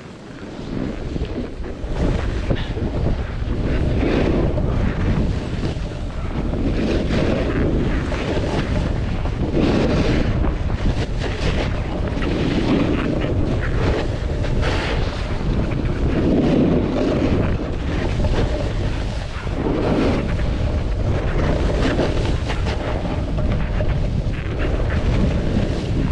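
Wind buffeting the microphone of a camera carried by a skier going downhill, a steady rumble, with the skis' scrape on snow swelling about every two to three seconds through the turns.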